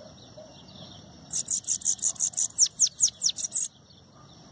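Bananaquit singing one rapid, high-pitched burst of about sixteen notes, starting about a second in and lasting a little over two seconds, the later notes sweeping sharply downward before it stops abruptly.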